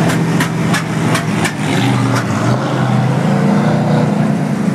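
Monster truck ride vehicle's engine running loud, heard from inside its cab, its pitch dipping about halfway through and then rising again as it changes speed. Sharp ticks or rattles, about three a second, sound over the first two seconds.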